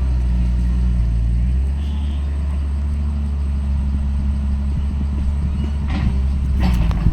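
Diesel engine of heavy earthmoving machinery running steadily at a constant pitch, with a few short metallic clanks about six seconds in.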